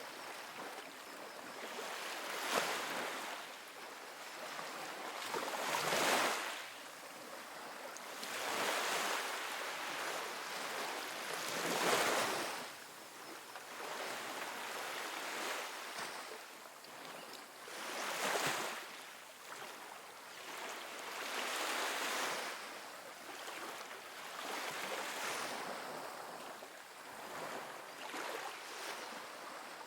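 Small ocean waves breaking and washing up a sandy beach, a soft hiss of surf that swells and fades again every few seconds.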